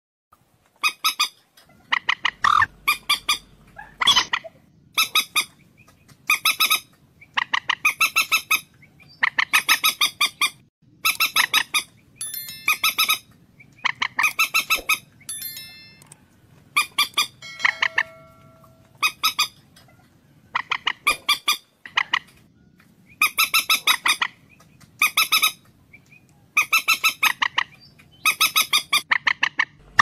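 Common moorhen calling: short bursts of rapid clicking notes, one burst about every second, repeated over and over.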